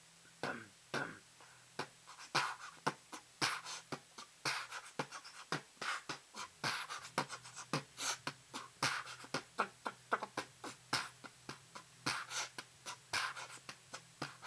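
Beatboxing: a rhythmic run of sharp percussive mouth sounds, clicks and short hissy hits. It is sparse for the first couple of seconds, then quickens into a dense beat.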